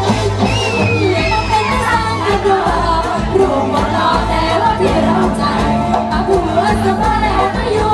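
Live Thai band music with a singer over a steady bass, the voice gliding up and down in pitch in the first couple of seconds.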